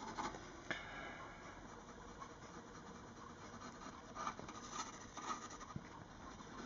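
Staedtler Lumograph graphite pencil shading on drawing paper: a faint, dry scratching of short strokes as dark background tone is laid in, with a few louder strokes about four to five seconds in.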